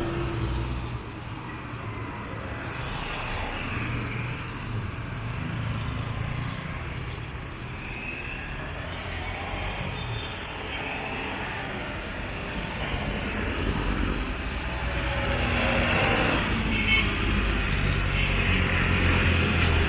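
Street traffic: car and truck engines running and passing, a steady low engine hum that grows louder over the second half as a vehicle draws near.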